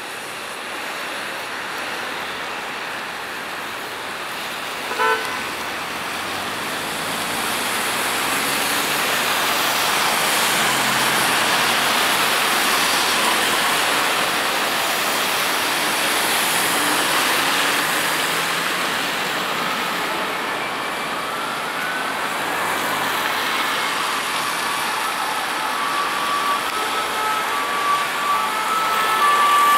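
Steady hiss of rain and traffic on a wet road, with a short horn toot about five seconds in. Near the end, fire engine warning horns and siren begin, sounding in short stepped tones.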